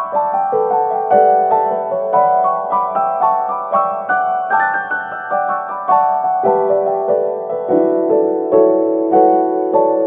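Background piano music: a steady flow of quick repeated notes over sustained lower tones.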